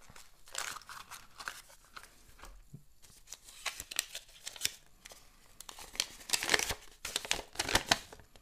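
Paper and thin cardboard being handled as a small box is opened and a folded paper insert is pulled out and unfolded. It makes crinkling, rustling noise in several short bursts with small clicks, and the loudest come near the end as the sheet is opened out.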